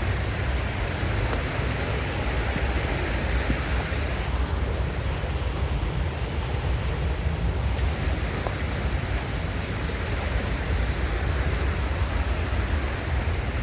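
Rain-swollen river rushing in a steady roar of water, running high and flooding its banks after heavy rain.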